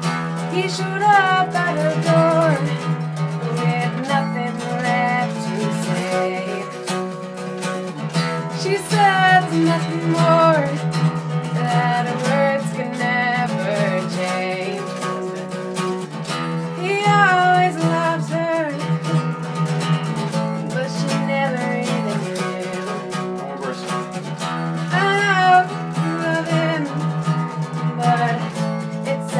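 Improvised song: a guitar strummed steadily under a voice singing a freely wandering melody in separate phrases.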